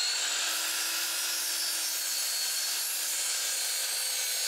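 DeWalt miter saw running steadily at full speed, a high, even whine, as its blade is brought down into a piece of pine trim.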